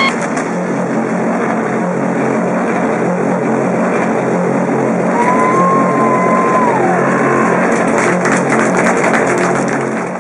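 Two-piece garage rock band of electric guitar and drums ending a song in a dense, noisy wash of sound. About halfway through, a high whining guitar tone slides and bends downward. Cymbal hits pile up near the end before everything fades out.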